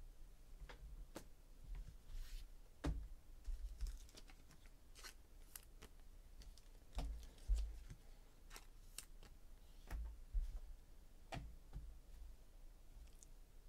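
Football trading cards handled by hand: flicked through and set down in stacks on a tabletop, making scattered, irregular soft clicks and paper taps. A few duller knocks on the table come among them.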